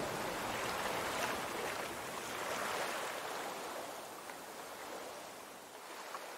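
Sea waves washing, a steady rushing noise that slowly fades out.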